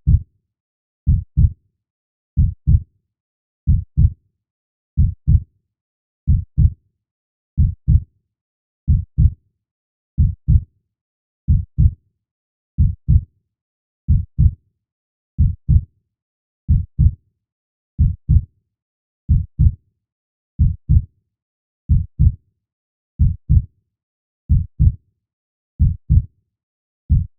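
Slow heartbeat: a steady lub-dub double thump repeating about every 1.3 seconds (roughly 46 beats a minute), low in pitch, with silence between beats.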